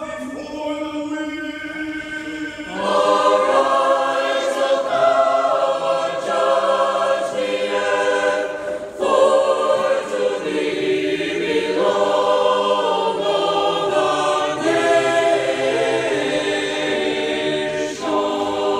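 Church choir singing Orthodox liturgical chant a cappella, in sustained sung phrases, growing louder about three seconds in.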